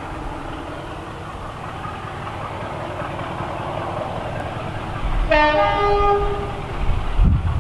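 Class 33 diesel locomotive approaching unseen, its engine growing slowly louder, then sounding its two-tone horn: a short low note followed by a longer high note, about five seconds in. Wind buffets the microphone near the end.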